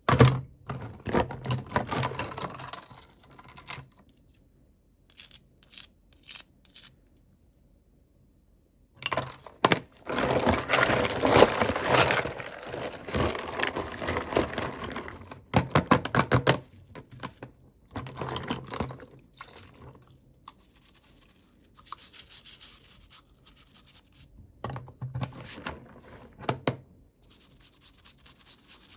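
Hands unwrapping and handling toy packaging: irregular rustling, rubbing and tearing with scattered clicks, in bursts with a short pause in the middle.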